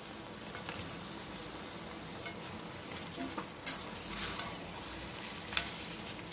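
Onion-tomato masala sizzling in an aluminium kadai while cut drumstick pieces are added and stirred in with a metal slotted ladle. In the second half the ladle knocks and scrapes against the pan a few times.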